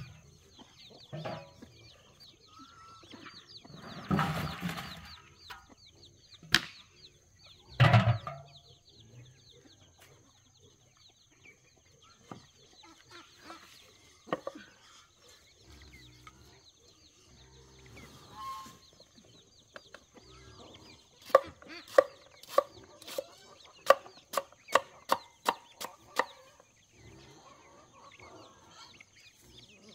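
Chickens clucking, with a few louder calls. In the last third, a steady run of sharp strikes, a little over two a second, as of chopping.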